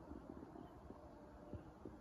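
Near silence: quiet outdoor ambience with a couple of faint soft knocks in the second half.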